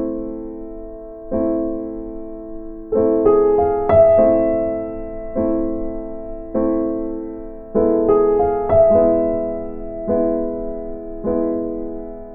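Background music: slow, gentle piano chords, each struck about every second and a half and left to ring and fade.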